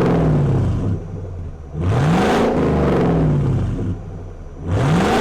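V8 pickup truck engine revving through a Borla ATAK muffler, blipped up and let fall back about every two and a half seconds. Each rev rises quickly and falls away more slowly.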